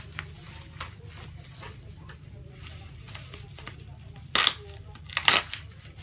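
Parcel packaging being handled and torn open: light rustling and small clicks, then two short loud rips about a second apart near the end, over a steady low hum.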